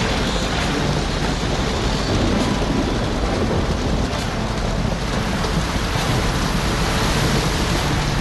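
Storm at sea: heavy rain and wind with a low thunder rumble, a steady, unbroken wash of noise with no sharp claps.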